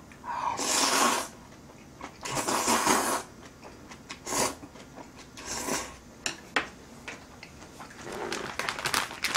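Ganjjajang noodles being slurped off chopsticks: two long slurps in the first three seconds, then shorter slurps and wet chewing.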